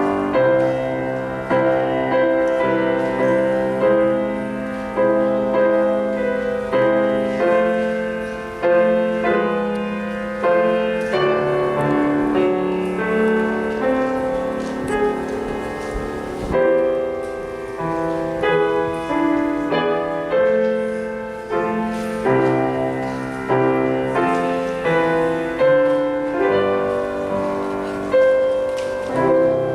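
Piano playing a slow, even-paced piece, with chords struck about once a second and left to ring.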